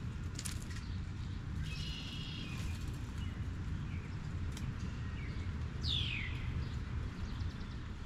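Wild birds calling in the background: a quick run of chirps about two seconds in and one downward-sliding call near six seconds, over a steady low rumble.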